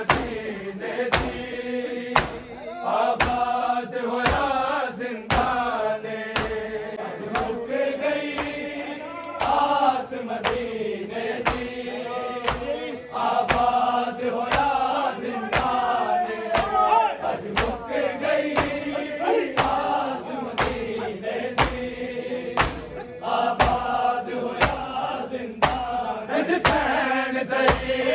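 Men's voices chanting a noha, a Shia mourning lament, in a steady sung line, kept in time by sharp rhythmic matam: hands striking chests about one and a half times a second.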